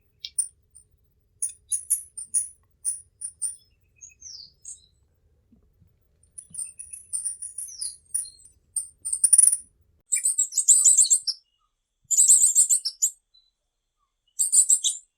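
Tanagers calling: high, thin chips spaced out at first, then a run of twittering. From about ten seconds in come three dense, buzzy phrases of about a second each.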